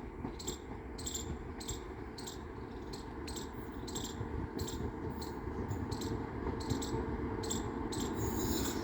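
Insects chirping in a regular pulse, about two short high-pitched chirps a second, over a steady low rumble that grows slightly louder.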